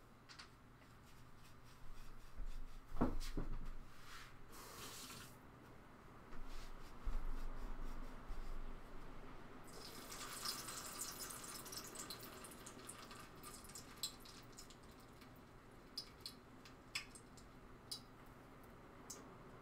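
Hot canola oil sizzling in a pot on the stove: the hiss starts suddenly about ten seconds in and slowly dies down. Before it, a few knocks of a wooden spoon against the pot, and light clicks after.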